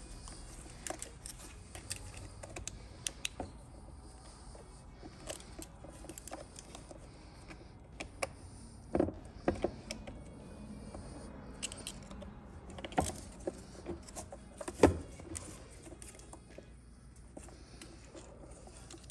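Irregular small metal clicks and taps of a pick and hand tools working inside an 8L90 transmission case, prying at the keeper on the oil pump drive gear. A few louder knocks come about nine, thirteen and fifteen seconds in.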